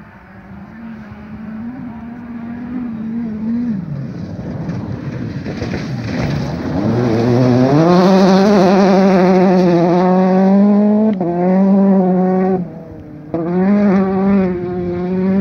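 Peugeot 208 T16 R5 rally car's turbocharged four-cylinder engine approaching, its revs falling as it slows for a dirt corner about four seconds in. It then accelerates hard past and away, revs climbing, with two short breaks at gear changes near the end.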